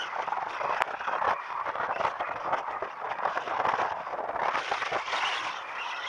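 Wind and road noise buffeting an action camera's microphone while riding, a dense fluttering rush with no clear engine note. There is one faint sharp click about a second in.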